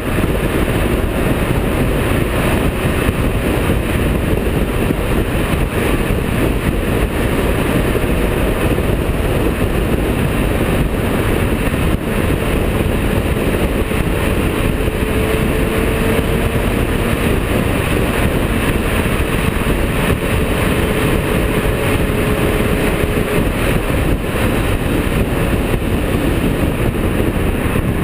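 Ferrari 348 GTS cruising steadily, heard through a camera mounted low on the outside of the body beside a wheel: a loud, even rush of wind and tyre noise with the V8 engine running beneath it.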